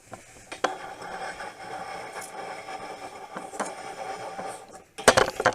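A small electric motor, most likely a cordless drill driving a screw to fix a board to the table, runs steadily for about four seconds and then stops. A short, loud, sharp sound follows about five seconds in.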